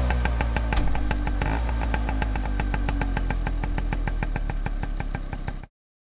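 Vespa scooter engine heard close at the exhaust, running at low, steady revs with an even train of exhaust pulses. It cuts off suddenly about a second before the end.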